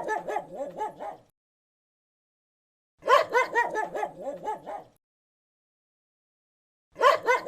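A dog barking in quick runs of about five or six barks a second. Each run lasts under two seconds, and the same run comes three times with short silences between.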